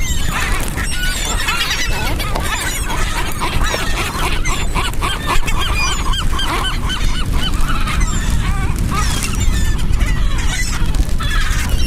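A flock of seagulls at a feeding, squawking over one another: many short calls that rise and fall, overlapping throughout, over a steady low rumble.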